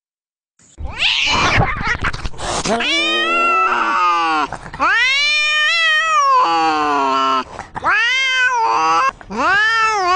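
Domestic tabby cat giving an angry hiss, then a string of long, wavering threat yowls, each rising and falling in pitch: caterwauling in a standoff between two cats before a fight.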